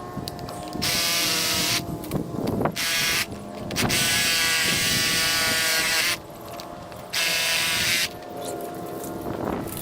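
Cordless DeWalt reciprocating saw with a wood blade cutting through bush stems in four bursts, the longest lasting about two seconds, with quieter rustling of branches between the cuts.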